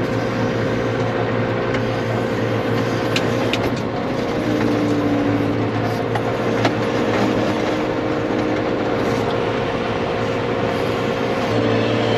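Tractor engine running steadily under load while pushing a stuck cattle trailer through deep snow, its note shifting slightly about four seconds in.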